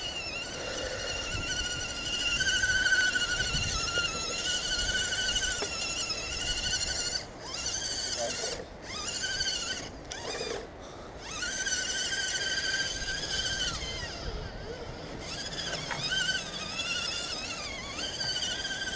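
Electric motors and gear trains of radio-controlled scale crawler trucks whining, the pitch wavering up and down with the throttle. The whine cuts out briefly several times midway as the throttle is let off.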